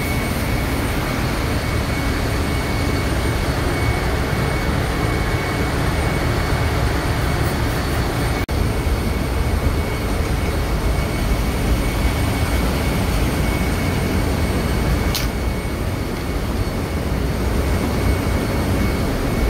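Steady, loud machinery noise of a ship's engine room: a constant low rumble with a faint high whine over it.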